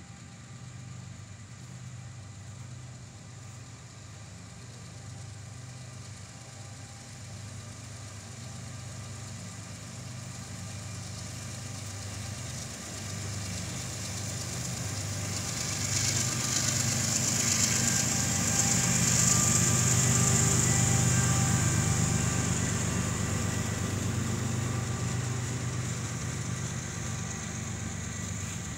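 Mid-train distributed-power diesel locomotive passing with the freight train: a steady engine hum that grows louder, peaks with a high hiss a little over halfway through, then eases away, over the rumble of freight cars rolling on the rails.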